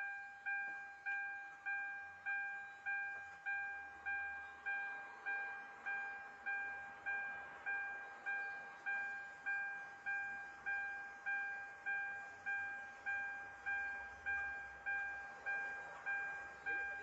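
Electronic warning chime of a vehicle repeating steadily, about two evenly spaced dings a second, each a single clear tone that fades before the next.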